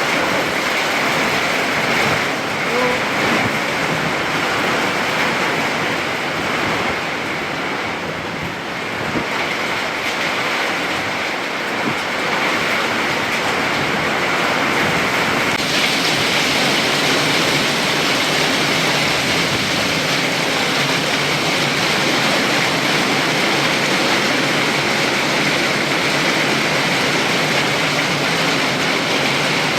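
Heavy thunderstorm rain pouring down in strong wind, a loud, steady rushing noise. About halfway through it turns harsher and hissier as the downpour grows heavier.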